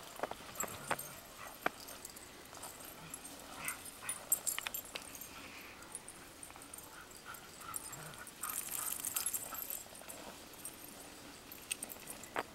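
A group of dogs whimpering and yipping faintly, with a string of short whines about seven seconds in, among scattered clicks and crunches.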